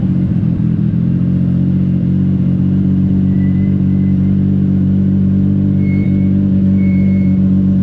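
Legend race car engine running loud and steady at an unchanging speed, with no revving.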